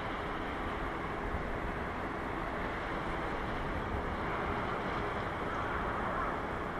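Steady outdoor background noise: a low rumble and hiss with a faint hum, with no single event standing out.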